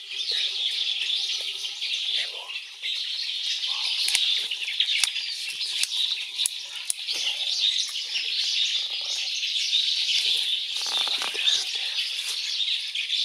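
Wild birds chirping and calling in a dense, continuous forest chorus, with many short high chirps overlapping throughout.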